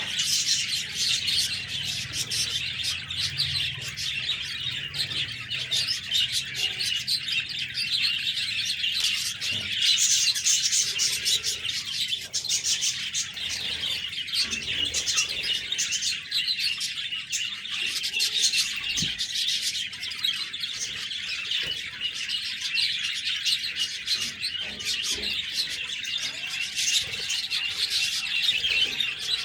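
A group of budgerigars (budgies) chirping without pause, many high chirps overlapping.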